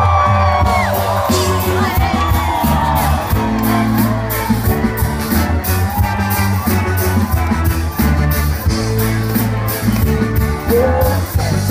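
Live reggae band playing: a steady bass line and drums with an even cymbal beat, under singing, with crowd whoops near the start.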